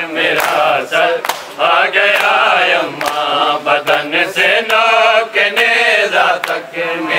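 Male voices chanting a noha (Shia lament) in a drawn-out melodic line. Over it come sharp slaps of hands on bare chests (matam), at a steady beat of roughly once a second.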